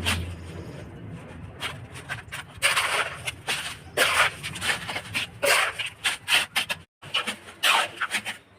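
A hand tool rasping on PVC pipe in short, uneven strokes, with a brief cut to silence about two-thirds of the way in.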